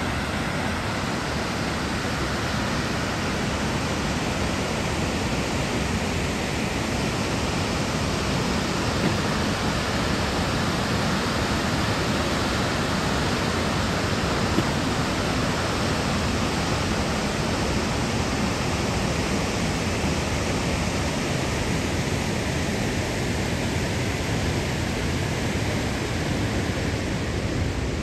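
Cumberland Falls: a large river waterfall plunging into its pool, heard as a steady, dense rush of falling water.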